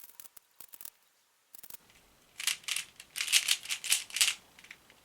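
Plastic 3x3 Rubik's cube being turned by hand, its layers clicking and rattling: a few scattered turns, then about two seconds of rapid turning, the loudest part.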